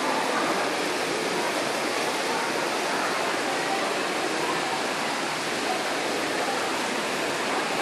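Large ornamental fountain's jets splashing into its basin, a steady rushing of water.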